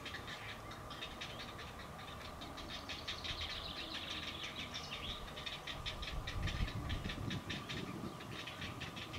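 Grey heron chicks in the nest giving their begging call, a fast, dry ticking chatter of many clicks a second. A low rumble swells briefly about six to seven seconds in.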